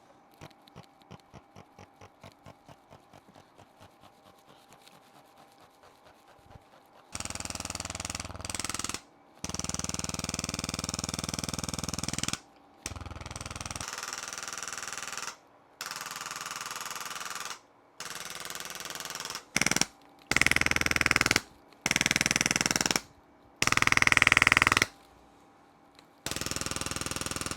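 Handheld electric percussion instrument used for a chiropractic adjustment without joint cracking. It is fired in repeated bursts of rapid buzzing hammering, each lasting one to three seconds with short breaks between. Before it, a quieter train of regular clicks fades away over the first several seconds.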